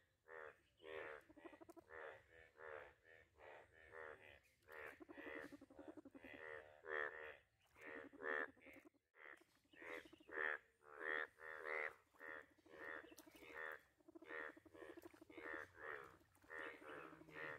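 A chorus of Indian bullfrogs, breeding males giving their mating calls: many short, rough croaks overlapping in quick succession, with a brief lull about nine seconds in.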